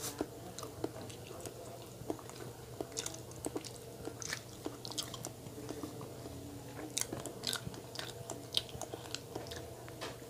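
Close-up mouth sounds of chewing a soft chocolate-coated, marshmallow-filled donut: wet smacks and clicks scattered throughout, with another bite taken near the end. A steady low hum runs underneath.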